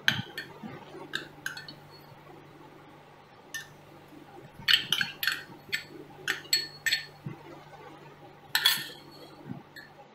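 Glass bowls clinking: a small glass bowl is tipped and knocked against the rim of a larger glass mixing bowl, a scattered series of light clinks and taps, some in quick clusters.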